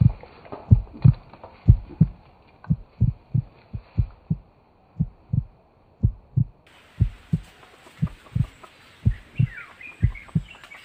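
Heartbeat sound effect: a low double thump repeating steadily, a little faster than once a second. Near the end, short faint bird calls come in over it.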